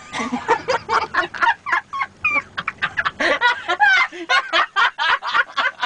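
A person yelling and shrieking in a rapid string of short, high-pitched whoops, several a second, with no words.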